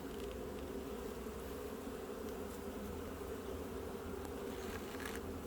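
Honey bee colony buzzing as a steady hum from an open hive during a frame inspection.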